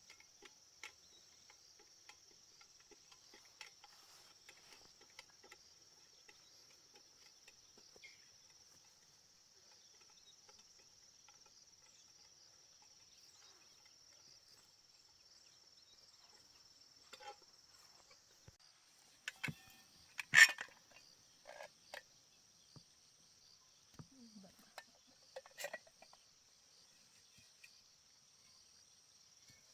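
Steady high insect trilling, typical of crickets, with scattered faint taps and, in the second half, a cluster of clicks and knocks from handling; one sharp click about two-thirds of the way through is the loudest sound.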